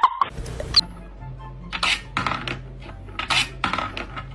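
A series of sharp clinks and knocks of hard objects striking, about seven spread over three seconds, over a low steady hum.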